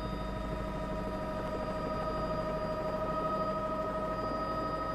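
News helicopter's cabin noise, heard from inside the cabin: a steady mechanical drone with several steady whining tones over a low rumble.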